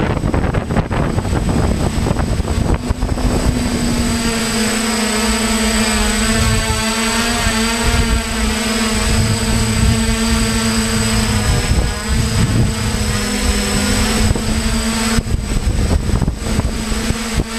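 Hexacopter drone's motors and propellers, heard from the rig it carries: wind rushing over the microphone at first, then from about three and a half seconds a steady, loud buzzing drone with a thin high whine above it.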